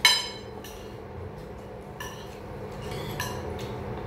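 Cutlery clinking against a plate while eating: one sharp ringing clink right at the start, then a few lighter clinks.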